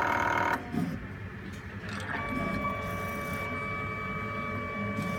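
Faca 261 automatic biochemistry analyzer running its mechanism. A loud buzzing motor tone cuts off about half a second in, then a quieter mechanical hum, then a steady whine that starts about two seconds in and stops near the end.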